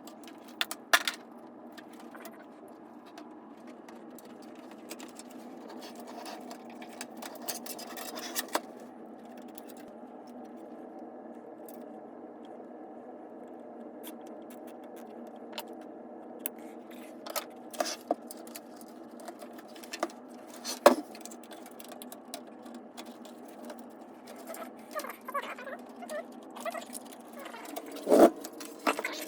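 Scattered clicks, light metallic rattles and scrapes of computer parts and screws being handled during PC assembly, over a steady hum; the sharpest knocks come about a second in, near the middle and near the end.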